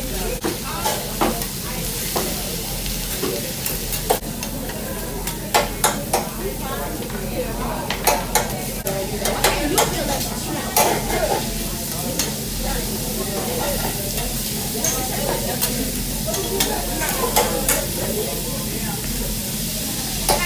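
Food sizzling on a steel hibachi griddle, with repeated sharp clicks and scrapes of a metal spatula against the hot plate.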